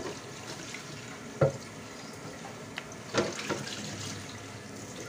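Steady hiss of water running from a kitchen tap, with a few short knocks over it, the loudest about a second and a half in.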